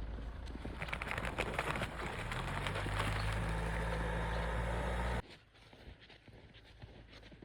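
Car engine running, with a steady low hum and a dense clatter of clicks, that cuts off abruptly about five seconds in, leaving faint scattered ticks.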